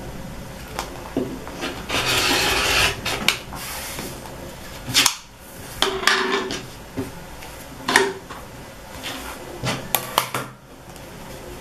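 Sewing tools and fabric handled on a cutting mat: a rotary cutter and acrylic ruler with cotton fabric. A rasping rustle comes about two seconds in, followed by scattered sharp clicks and knocks and the fabric being slid and moved.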